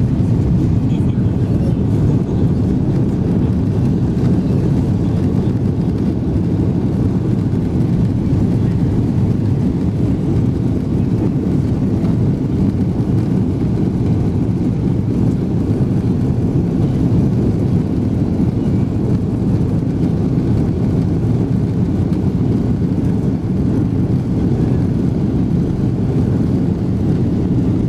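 Steady low rumble inside an Airbus airliner's cabin as it rolls along the ground, with the jet engines running and the wheels on the pavement. The noise sits mostly in the low range and holds even, with no spool-up.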